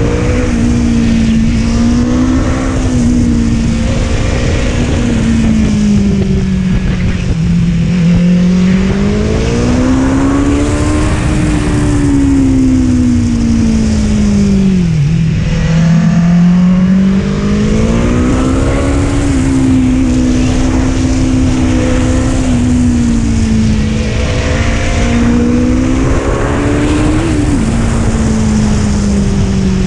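BMW S1000R's inline-four engine running at speed, its note rising and falling with the throttle as the bike accelerates and slows, dipping lowest about halfway through. Steady wind rush sits underneath.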